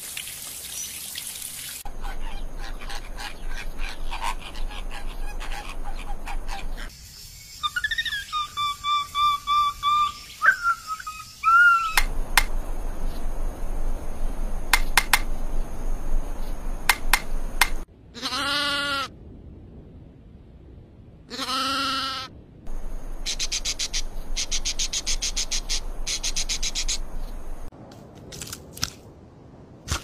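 A changing run of wildlife sounds. Birds call in runs of repeated whistled notes, and there are scattered sharp taps, then two loud calls about a second long and three seconds apart. Near the end comes a fast, high trill.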